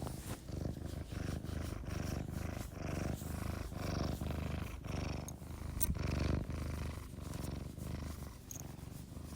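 Domestic cat purring steadily close up, the low rumble swelling and easing with each breath in and out.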